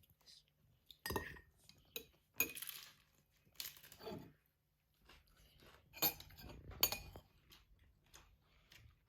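Dishes and cutlery clinking: a scattered run of faint taps and knocks of tableware being handled.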